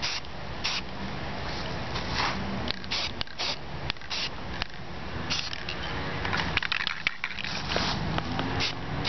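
Aerosol can of pink spray paint sprayed in many short spurts of hiss onto an egg.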